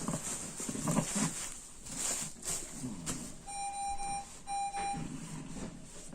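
A child's congested, labored breathing, with two long electronic beeps a little past halfway.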